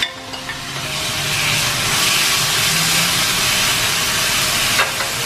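Marinated chicken pieces sizzling as they hit hot oil in a frying pan. The hiss builds over the first second, then stays loud and steady. There is a light knock near the end.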